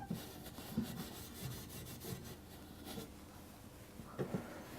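Steel wool rubbing over a copper pipe and its soldered fitting in quick, scratchy strokes, scrubbing off leftover flux after soldering so it won't corrode the pipe.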